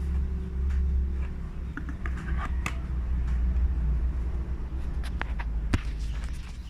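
Cardboard box and packaging being handled: scattered clicks and rustles, one sharp click near the end, over a steady low hum.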